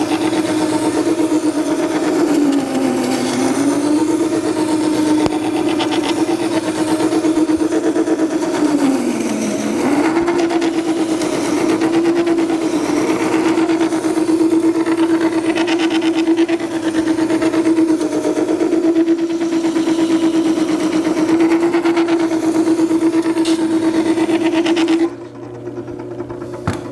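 Makita 98202 horizontal-wheel wet blade sharpener grinding a steel planer knife, held in its jig, against the spinning water-cooled stone wheel: a loud, steady whirring grind whose pitch dips twice. Near the end the grinding stops sharply as the knife is lifted off, leaving a quieter hum.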